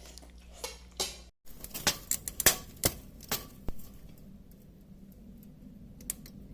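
A quick run of sharp clicks and clacks, like dishes or utensils knocking together, most of them packed into about two seconds, over a low steady rumble.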